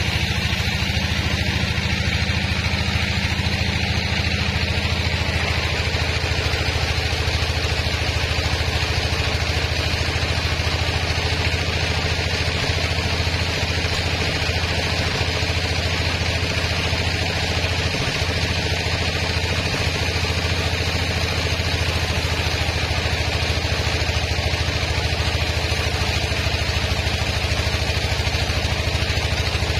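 Band sawmill's drive engine running steadily with an even, unchanging low drone, the saw turning with no cut under way.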